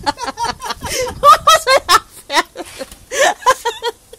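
People laughing helplessly in rapid, short, breathless bursts of giggles and snickers.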